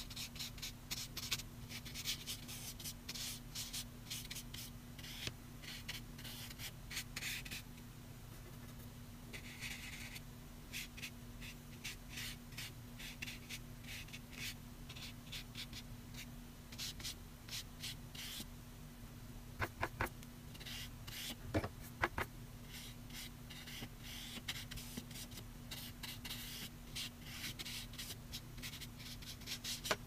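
Flat watercolour brush stroking and dabbing wet paint across paper, a quick run of short scratchy swishes over a steady low hum. A few sharp clicks come about two-thirds through.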